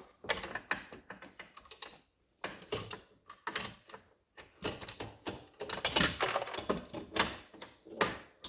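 Irregular clicks, clinks and knocks of metal hand tools and mounting hardware being handled and worked at an ATV track's suspension mount, busiest in the second half.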